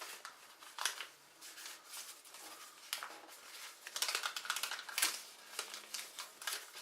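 A sheet of paper being folded and creased by hand for an origami bird, rustling and crackling, with sharp crinkles about a second in, near three seconds, and a busier run between four and five seconds.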